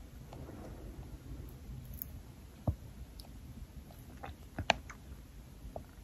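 A person hiccupping: two short, sharp hiccups about two seconds apart, the second louder, with faint mouth clicks between.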